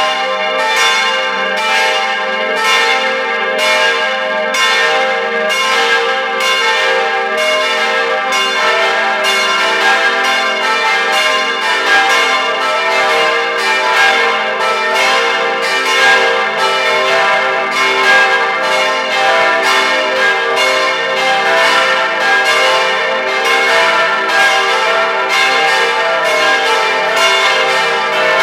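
Full peal of four 1953 Rincker bronze church bells, tuned e', g', a', c'', swinging on straight yokes and heard close up in the belfry. Their strikes overlap in a dense, steady ringing.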